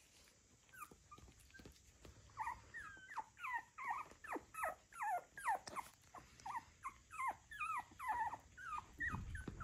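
Young cockapoo puppies squeaking and whimpering: short high cries that bend up and down, several a second, starting about two seconds in and keeping on.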